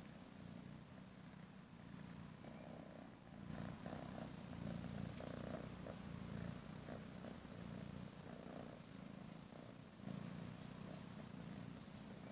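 A kitten purring steadily as it is stroked, a low continuous rumble that grows louder a few seconds in.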